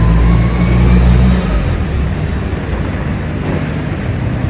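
A motor running steadily with a low hum and a hiss. A faint whine rises slowly in pitch, and the hum eases off about a second and a half in.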